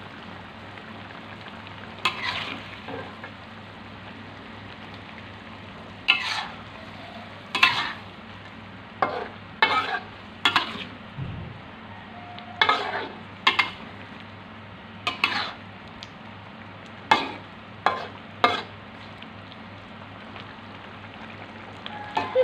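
A metal spatula stirs and scrapes chicken offal around a wide metal wok, making about a dozen sharp scrapes at uneven intervals over a steady sizzle. The braising liquid is being cooked down until nearly dry.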